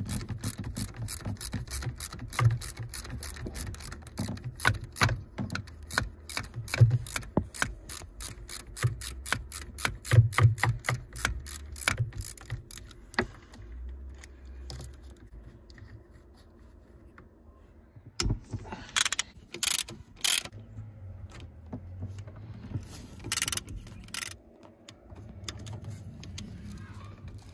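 Ratchet wrench clicking in quick, even runs for the first thirteen seconds or so as bolts are backed out of a Sea-Doo 951 two-stroke engine, followed by a few separate knocks and clatters of tools being handled.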